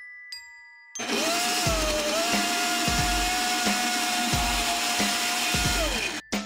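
Personal bullet-style blender motor blending a berry, banana and almond-milk smoothie. It spins up about a second in, runs with a steady high whine and regular low knocks about every two-thirds of a second, then winds down and stops near the end.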